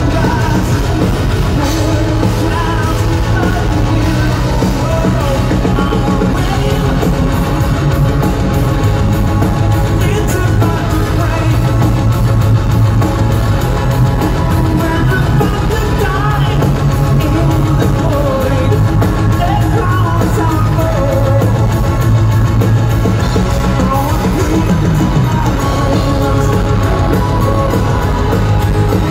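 Power metal band playing live at full volume: drum kit, distorted electric guitars, bass and keyboards, with lead vocals singing over them.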